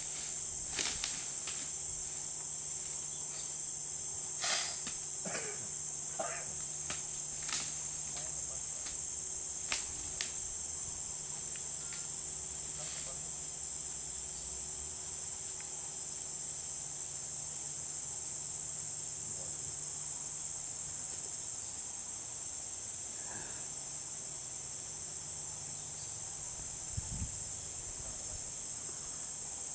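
Forest insects droning steadily in a high, even pitch, with a few sharp clicks in the first ten seconds.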